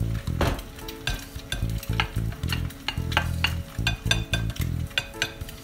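A plastic rice paddle scooping cooked rice and scraping and tapping it onto a ceramic plate, in a run of short clicks and scrapes. Low steady tones start and stop underneath.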